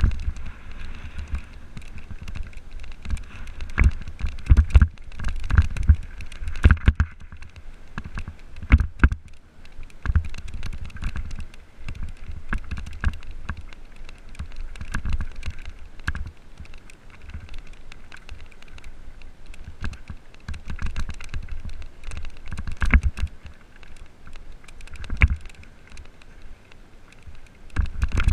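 Mountain bike rolling fast down a loose gravel trail: tyres crunching over the gravel and the bike rattling, with frequent sharp knocks and heavy thuds as it hits bumps.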